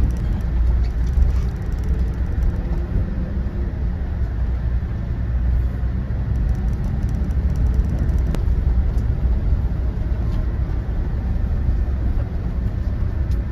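Steady low rumble of a Scania K400IB coach's engine and tyres on the road, heard from inside the moving bus, with a single sharp click about eight seconds in.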